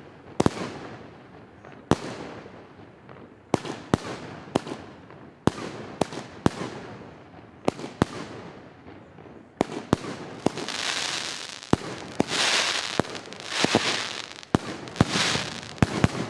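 Tropic TB62 firework shooting and bursting overhead: sharp bangs at irregular spacing, joined in the second half by four swells of dense hiss between the bangs.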